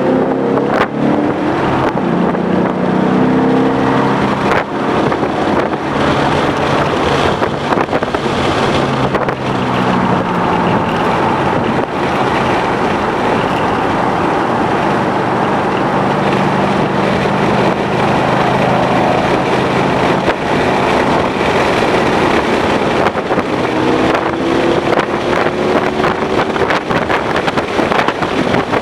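Ford Mustang GT's 5.0-litre V8 under hard track driving. The revs climb through the first few seconds, hold fairly steady through the middle, and climb again near the end, over steady wind and road noise.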